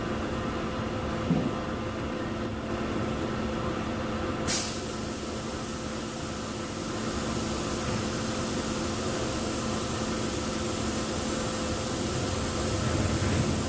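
Jet dyeing machine running with a steady hum. About four and a half seconds in there is one short, sharp burst, followed by a brighter hiss.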